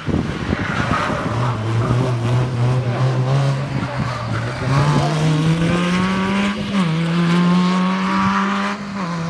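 Peugeot 106 rally car accelerating hard out of a corner, its engine note held steady and then climbing, with a drop in pitch at each upshift about seven seconds in and near the end. Tyres squeal briefly about a second in.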